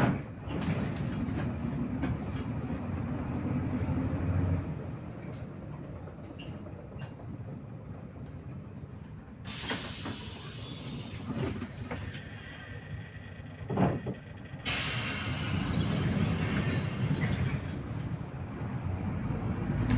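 MAZ 103 city bus heard from inside, its engine and the rumble of the ride running low and steady. About halfway through a loud hiss from the bus's compressed-air system starts suddenly, lasts several seconds, and cuts off near the end.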